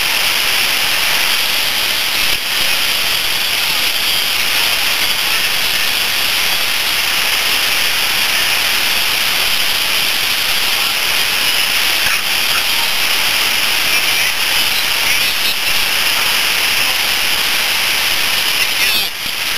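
A steady, loud, high-pitched hiss with no tone or rhythm in it; it dips briefly near the end.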